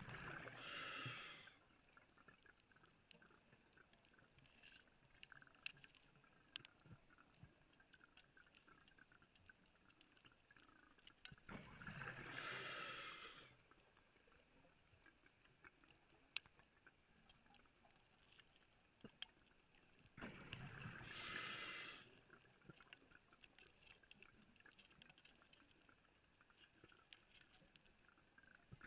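Underwater exhalation bubbles from a diver's breathing, each burst about two seconds long and repeating about every eight to nine seconds, with faint scattered clicks in the quiet between breaths.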